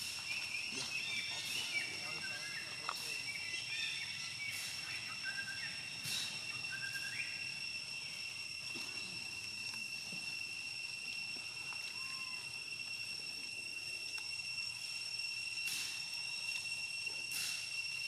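Outdoor ambience: a steady high-pitched insect whine, with short high chirps during the first seven seconds or so and a few faint clicks.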